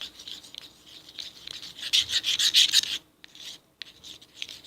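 Homemade slime being stirred: a utensil scraping and rubbing against the container, loudest from about two to three seconds in, then a few light ticks.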